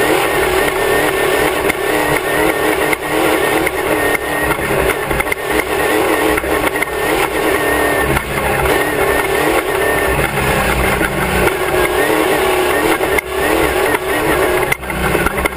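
Class 1 off-road race car's engine running hard under load, heard from a camera mounted on the back of the car. The pitch wavers up and down as the throttle is worked, with a few short knocks from the chassis over rough ground.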